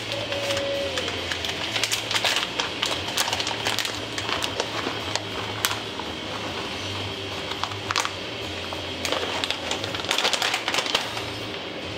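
Plastic bag of shredded cheddar crinkling and rustling as it is handled and shaken out, in irregular crackly bursts, busiest near the end, over a low steady hum.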